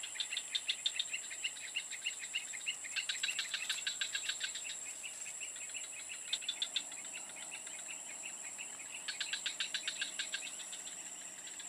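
Insects in the grass: a steady high-pitched drone, with bursts of rapid, evenly repeated chirping that come and go every few seconds.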